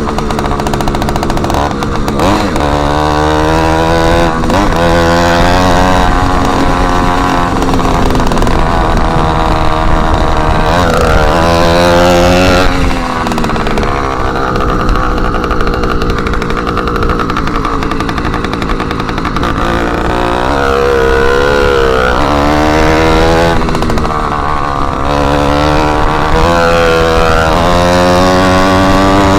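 Motorized bicycle's small engine running loud with its exhaust tip removed. Its pitch rises and falls again and again as the rider accelerates and eases off.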